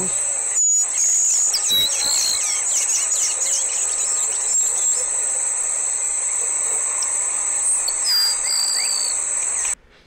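Field recording of a grassland sparrow singing thin, high notes over a steady high-pitched insect drone. The recording drops out briefly just under a second in and cuts off suddenly near the end.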